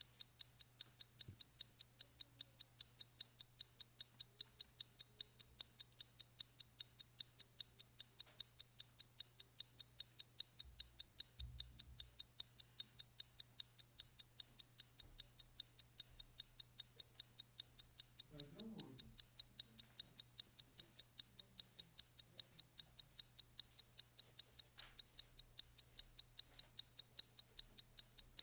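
Even, fast clock ticking, about three to four ticks a second, over a steady low hum.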